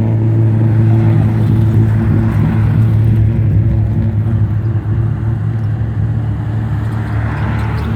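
Race car engine running steadily at low revs, a deep even drone that grows a little quieter toward the end.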